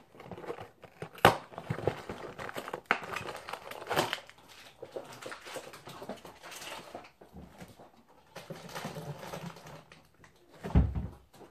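Kitchen handling noises: a cardboard snack box and its wrappers rustled and clicked open, with sharp clicks and knocks of things on the counter. Near the end comes a heavier dull thump at a wall cupboard door.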